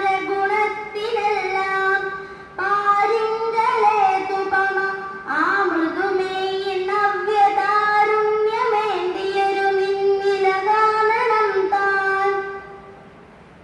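A girl sings an aksharashlokam verse solo and unaccompanied into a microphone, in a slow melodic chant with long held, gliding notes. Her voice stops about a second before the end.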